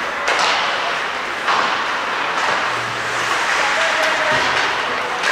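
Ice hockey in play: skates scraping across the ice with sharp knocks, the clearest about a third of a second and a second and a half in.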